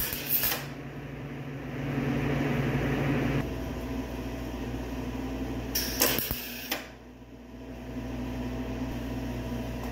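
MIG welder tack-welding a patch panel onto a car fender: two short bursts of crackling arc, one at the start and one about six seconds in, over a steady mechanical hum.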